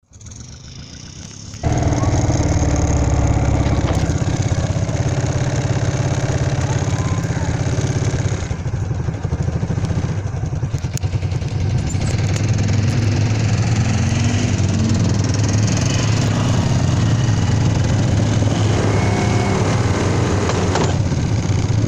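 ATV (quad bike) engine running with a steady low drone as the quad is ridden. It gets suddenly much louder about a second and a half in.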